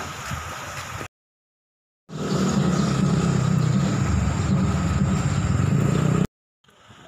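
Outdoor background noise broken by edits. After a brief silent gap, a loud, steady, low rumble runs for about four seconds and then cuts off abruptly.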